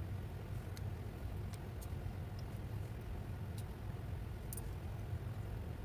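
A few faint, light clicks, spaced irregularly, over a steady low hum.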